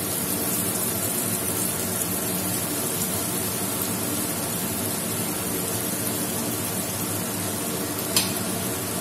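Breadcrumb-coated beetroot cutlets deep-frying in hot oil, the oil sizzling steadily, over a low steady hum. A single short click near the end.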